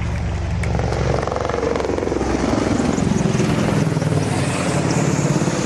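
Boeing AH-64E Apache attack helicopters flying overhead: a steady rapid rotor chop over turbine and engine noise.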